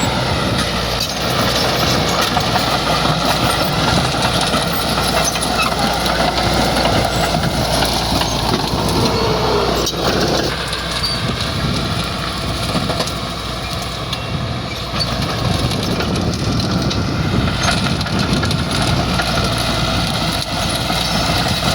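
Bulldozer's diesel engine running steadily under work.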